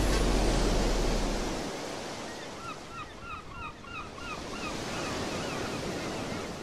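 Surf washing onto a sandy beach, a steady rush that swells and ebbs, with a bird chirping in a quick run of short calls in the middle. A low held note fades out about a second and a half in.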